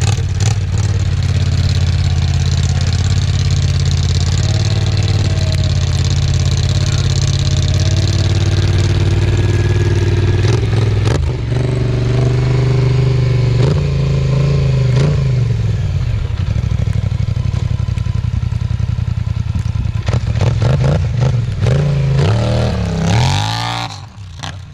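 Polaris Scrambler XP 1000 S ATV engine running loud and deep through a newly fitted RJWC dual crossflow exhaust. It runs steadily for most of the time, then revs up and down several times near the end as the quad pulls away.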